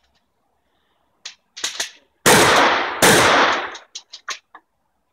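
Remington 870 pump-action shotgun fired twice, about three quarters of a second apart, each shot with a long ringing tail. A few short sharp clicks come before the shots and a quick run of them after.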